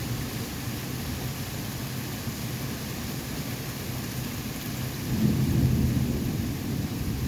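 Steady rain falling during a thunderstorm, with a low rumble of thunder swelling about five seconds in and then fading.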